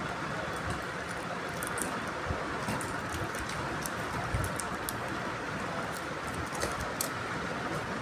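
Carry bag and its stapled paper receipt rustling and crackling as hands handle them, in scattered sharp crinkles over a steady background hiss.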